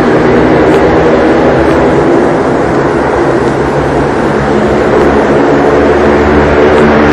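Underground recording of a steady, loud, motorcycle-like engine drone, with a deeper rumble building near the end. The uploaders take it for machinery at work in a North Korean infiltration tunnel; its real source is disputed.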